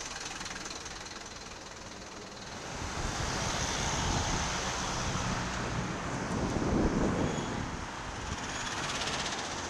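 Wind rushing over a bicycle-mounted camera's microphone, mixed with road traffic. It grows louder about two and a half seconds in as the bike picks up speed, and swells most near the end.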